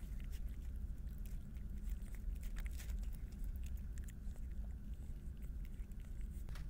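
A cat crunching dry kibble: a run of small crisp crunches, close up, over a steady low rumble.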